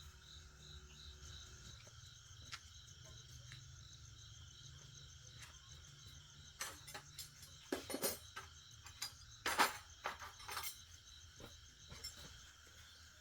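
Faint, evenly pulsing insect chirping over a low steady hum, with a scatter of sharp clicks and knocks in the middle.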